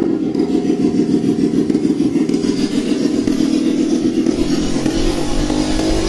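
Motorcycle engine running with its exhaust under the creek water, pulsing steadily and then revving up near the end as the exhaust blasts a jet of water into the air.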